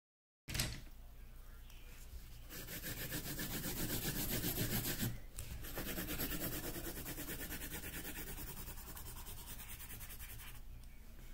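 A colouring tool rubbed back and forth over paper in fast, steady strokes, shading in part of a drawing. It starts abruptly about half a second in, grows louder for a couple of seconds, and breaks off briefly around the middle.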